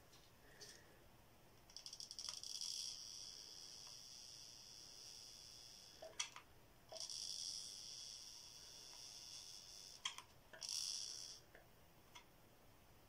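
Mini hot glue gun in use: sharp clicks of the trigger and three high squeals as the glue stick is pushed through the gun, the first two lasting about two seconds each and the last brief.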